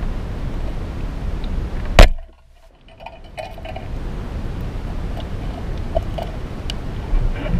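Speargun fired underwater: a single sharp snap about two seconds in, over a steady low underwater rumble. A few faint clicks follow.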